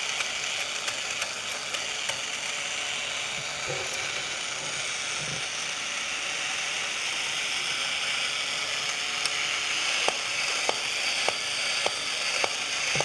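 Battery-operated Charlie Weaver Bartender tin toy running, its motor and gear train whirring steadily. From about ten seconds in, a regular clicking from the mechanism joins in, roughly one click every half second or so.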